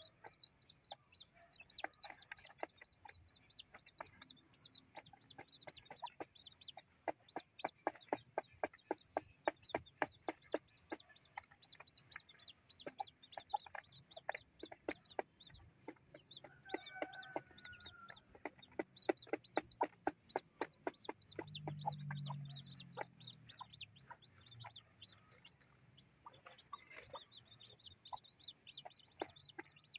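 Native chicken chicks peeping steadily in short high calls while they peck grain off cardboard, their beaks tapping rapidly on it. The mother hen gives a low cluck about two-thirds of the way through.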